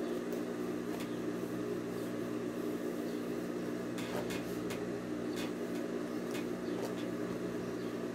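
Steady low electrical hum, with faint scattered clicks and snips of thread as a machine-sewn seam is unpicked from cotton fabric.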